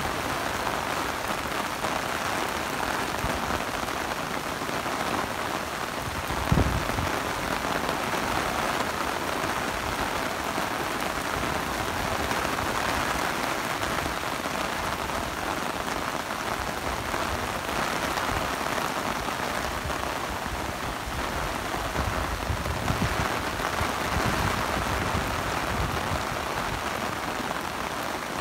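Heavy rain falling steadily on a wet paved street, with a single brief thump about six and a half seconds in.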